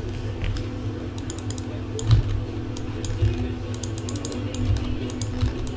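Computer keyboard typing: irregular key clicks in quick runs, with one dull knock about two seconds in.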